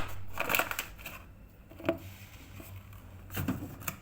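Soft rustling and a few light knocks from a small metal cooking pot being shaken and tapped to spread flour over its greased inside, with one sharp click about halfway through.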